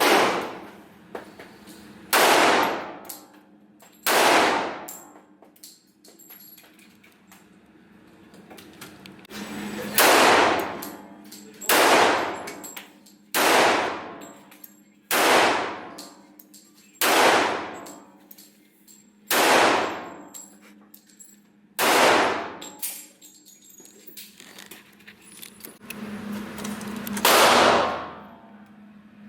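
Gunshots, about eleven single shots fired at uneven intervals of one to five seconds, each with a sharp crack and a ringing echo that dies away within about a second.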